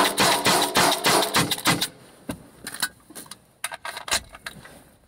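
Byrna HD CO2-powered less-lethal launcher firing a rapid string of pepper rounds from inside a car. The sharp pops of the shots mix with the smack of rounds hitting the target, and the firing pauses near the end.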